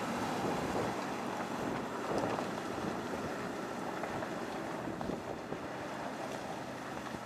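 Classic Range Rover driving slowly up a muddy dirt slope, its engine running steadily, mixed with wind buffeting the microphone.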